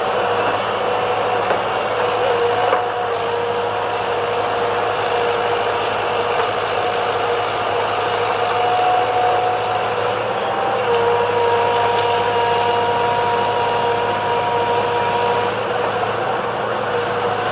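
Heavy diesel machinery running steadily, with a steady whine over the engine that shifts in pitch a few times.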